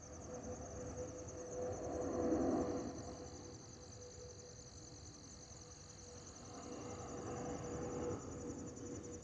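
Insects trilling steadily in a fast pulsing chirr, over a faint steady hum. Beneath them a low rumble swells about two seconds in, fades, and builds again near the end.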